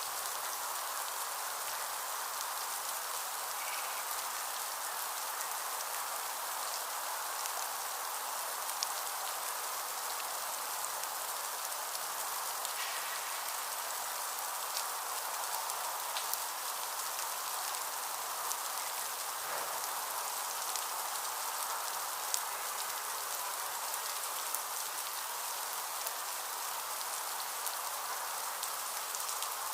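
Heavy rain falling steadily, with scattered sharp taps of individual drops.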